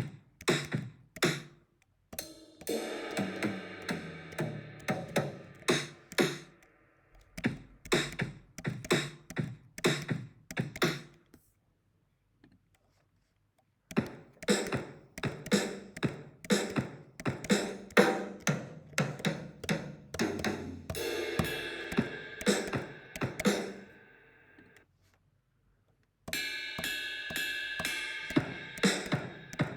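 GarageBand software drum kits playing short grooves and fills on kick, snare, hi-hat and cymbals, several hits a second. The playing stops twice, about 12 seconds in and again about 25 seconds in, as one kit gives way to the next.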